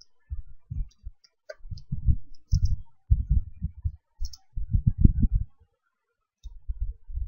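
Typing on a computer keyboard: a quick run of dull keystroke thumps with faint clicks, pausing briefly near the end.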